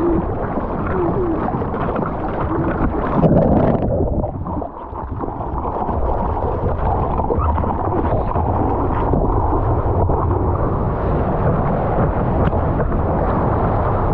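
Water rushing and splashing against a surfboard-mounted waterproof action camera as the board moves through the surf, a dull, steady low rush with a brief dip about five seconds in.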